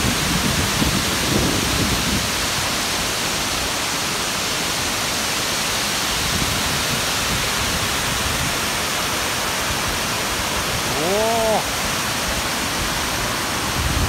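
Steady roar of water pouring over a wide weir, heard close up. About eleven seconds in, a brief rising-and-falling vocal sound.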